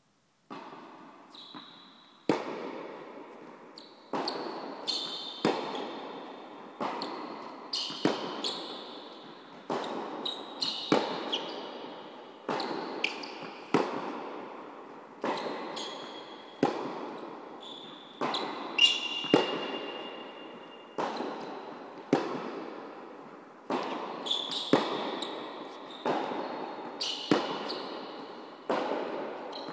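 Tennis rally: balls struck by rackets and bouncing on the court, a sharp pop about once or twice a second, each one echoing around the large hall, with short high squeaks of shoes on the court surface.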